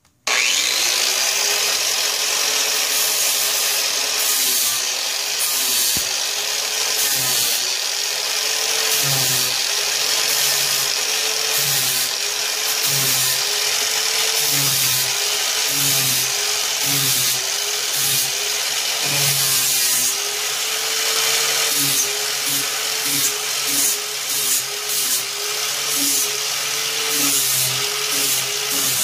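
Corded angle grinder with a flap disc switched on and grinding down a fiberglass and filler repair on a golf cart's front body panel. The motor's whine sags and recovers over and over as the disc bites into the material, with a steady rasping hiss from the abrasive.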